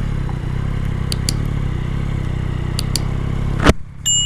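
Yamaha XSR900 motorcycle engine running steadily, with a few light ticks; a sharp click near the end, after which the engine sound drops away for a moment.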